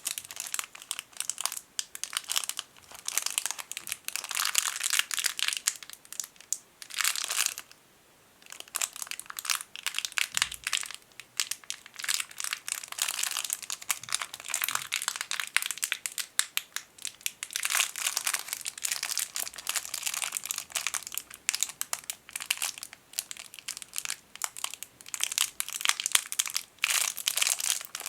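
A tiny plastic bag holding a lens container, crinkled, crackling and squeezed between the fingers while natural fingernails scratch and tap the plastic. The crackling is dense and continuous, with a short pause about 8 seconds in.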